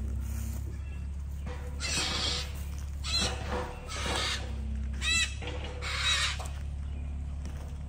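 Engine of a digging machine running steadily under a series of short, harsh bursts about once a second, two of them with quick, squealing chirps.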